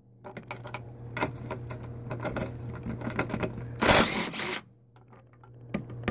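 Ratchet running off the 14 mm nuts on a front strut's top bearing mount: a rapid run of small mechanical clicks for about four seconds, a louder burst about four seconds in, then a short pause and evenly spaced clicks starting near the end.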